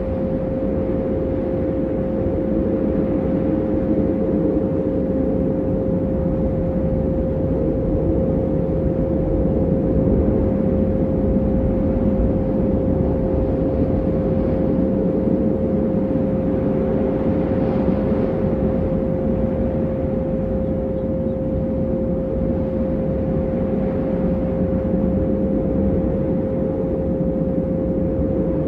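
Meditation 'frequency' track: a steady pure tone about an octave above middle C, held unchanged, over a dense low rumbling drone.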